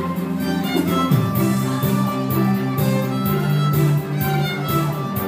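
Solo violin playing a melody over a recorded backing track with sustained low notes and a steady beat.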